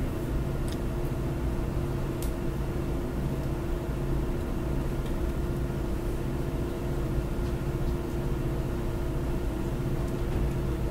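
Steady low hum and rumble of room noise, with a few faint clicks.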